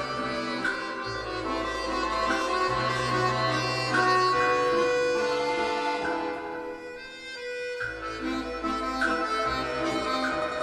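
Instrumental background music: held melody notes over a bass line that moves about once a second, briefly quieter around seven seconds in.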